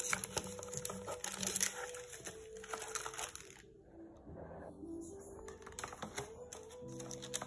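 Paper wrapping crinkling and rustling as it is handled, in a run of small crackles that stop briefly a little past halfway and then start again.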